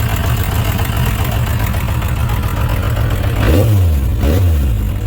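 Suzuki RF900 inline-four motorcycle engine idling unevenly, then its throttle is blipped twice near the end, the pitch rising and falling each time. One cylinder is misfiring: its spark plug stays wet, fouled and not firing well.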